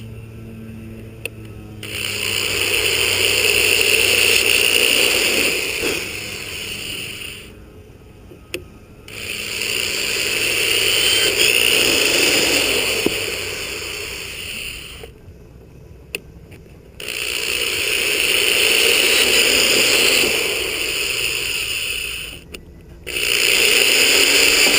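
A handheld power tool sanding fiberglass bodywork with a scraping, whining sound. It runs in four stretches of several seconds each, with short pauses between.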